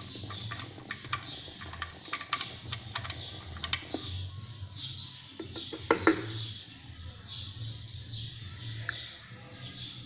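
Small birds chirping repeatedly, with scattered sharp clicks and knocks, a louder one about six seconds in, over a low steady hum.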